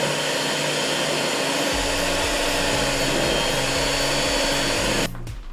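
Electric hand mixer running steadily, beating cake batter; it shuts off about five seconds in.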